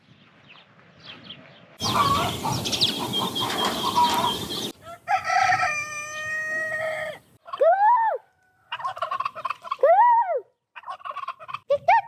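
Farmyard fowl calling: a rooster crows, then turkeys gobble several times in short rattling calls. A loud rushing noise lasts a few seconds before the calls.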